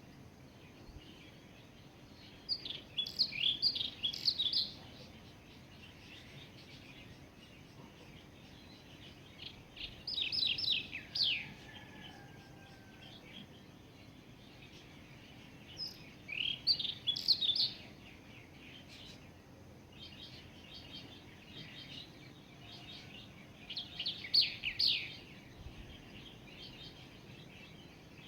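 A songbird singing: four phrases of quick, high chirping notes, each a second or two long and several seconds apart, with fainter chirps in between.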